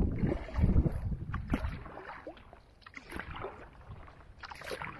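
Kayak paddle strokes, the blade dipping and splashing in the water about once every second and a half, with water lapping and dripping between strokes. A low rumble is loudest in the first second.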